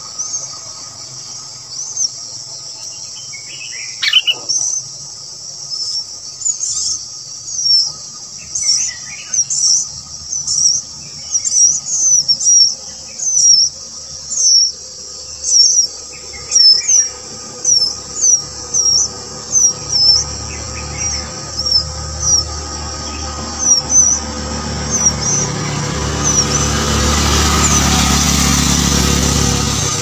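High, thin chirps repeated about twice a second over a steady high insect-like drone. A rising rush of noise swells near the end.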